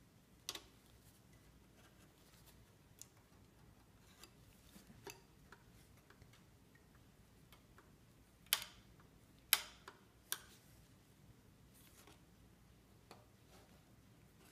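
A metal palette knife clicking and ticking against brass marquetry inlay as its tip is worked under the lifting brass elements: irregular small sharp clicks, with two louder ones in quick succession just past the middle.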